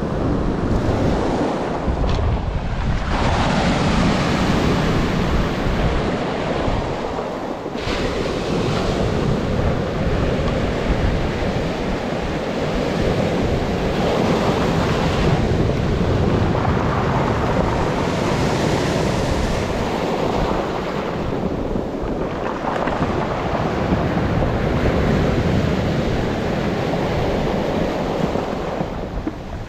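Sea waves breaking and washing onto the shore, surging every few seconds, with wind rumbling on the microphone.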